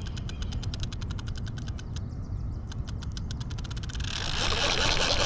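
Fishing reel clicking rapidly and evenly as it is cranked in to bring in a hooked fish, with a short gap about two seconds in. About four seconds in, a louder rushing, splashing noise rises.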